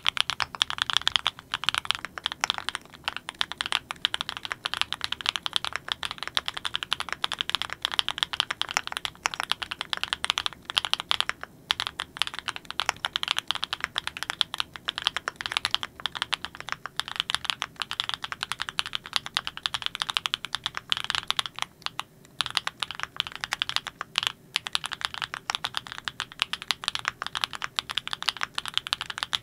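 Continuous fast typing on a Klein Mont Cervin custom mechanical keyboard with Kinetic Labs Candy Vanilla switches: a dense stream of key clacks, broken by a few short pauses.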